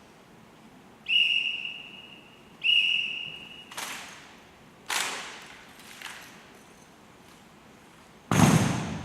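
Two long whistle blasts, then sharp echoing impacts from a rifle drill team's movements: three cracks about a second apart and a heavier, deeper thud near the end.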